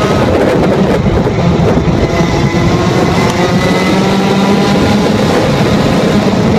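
Two-stroke Rotax kart engine at high revs under the driver, heard from onboard, with revs easing partway through for a corner and then building again as the kart accelerates.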